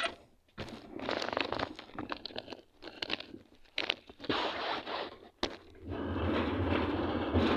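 Irregular crunching and rustling close to the microphone, in short bursts with gaps, like a phone being handled or clothing rubbing against it. From about six seconds in, a steady low rumble takes over.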